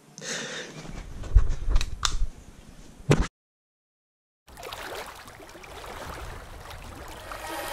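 Rustling bedding and the clicks and knocks of a phone being handled, the loudest knocks about a second and a half in and again near three seconds. The sound cuts out for about a second, then a faint hiss comes in and slowly grows louder.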